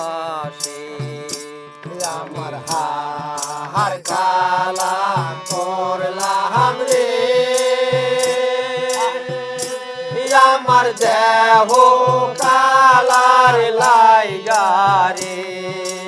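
Several men singing a Bengali folk song together in long, wavering sung lines, with a hand drum keeping a steady beat.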